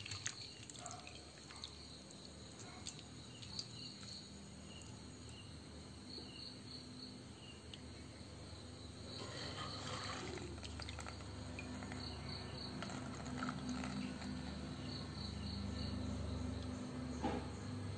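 Insects chirping in short, repeated groups of pulses over a low steady hum, with faint scattered clicks as a hand stirs cut jackfruit pieces in a steel bowl.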